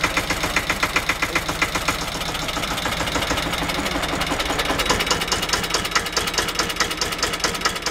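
Deutz D-15 tractor's two-cylinder air-cooled diesel running after a cold start, with a steady, evenly knocking beat that quickens about five seconds in.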